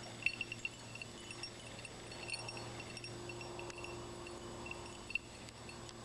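Small bell on a hunting dog's collar tinkling in quick, irregular jingles as the dog moves through brush, over a faint steady hum.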